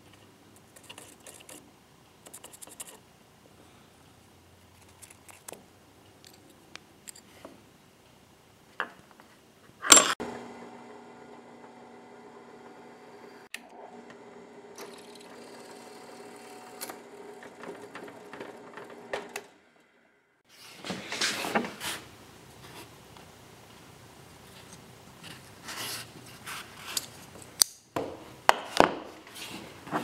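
Small metal parts of a pocket knife, its stainless steel scales and brass pins, clicking and clattering as they are handled. A sharp clack about a third of the way in is followed by a steady drill press hum for about ten seconds that cuts off suddenly. Then comes a stretch of dense scraping and clicking as the knife is put together.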